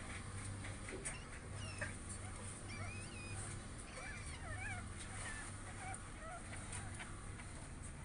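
Newborn pug puppies squeaking and whimpering while they nurse: many thin, high, wavering squeaks in the first six seconds, over a low steady hum.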